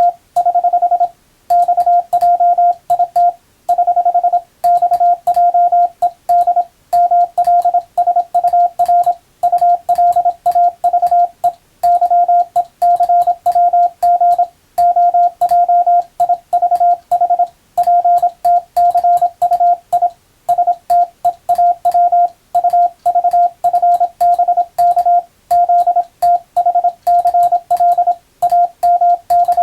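Morse code (CW) practice signal: a single pitched tone keyed rapidly on and off in dots and dashes at high speed, with short pauses between words.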